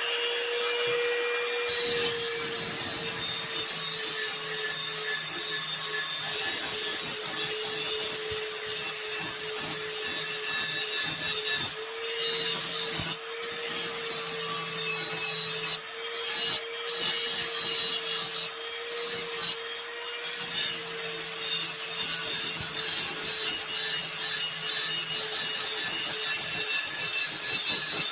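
Power grinder running with a steady whine, grinding the cutting edge of a steel lawn mower blade to sharpen it; the grinding noise eases briefly a few times as the tool is lifted off the edge.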